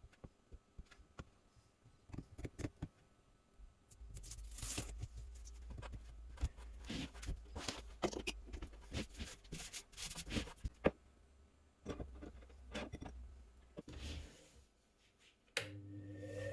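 Hands working on the machine: scattered clicks, scrapes and rubbing, with a low hum under a busy stretch in the middle. Just before the end an electric motor, likely the washing machine motor that drives the homemade spindle sander, starts and begins spinning up, its pitch rising.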